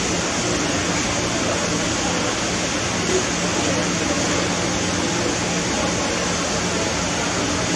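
Steady rushing background noise with a faint low hum underneath.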